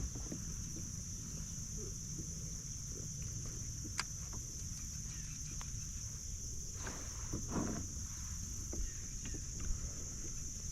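Steady high-pitched chorus of insects, crickets trilling without a break, over a low rumble of wind or water. A sharp click comes about four seconds in, and two soft knocks follow around seven seconds.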